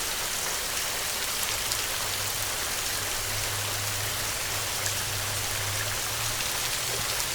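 Steady rain: a dense, even hiss with scattered small drop ticks. A faint low hum sits under it for a few seconds in the middle.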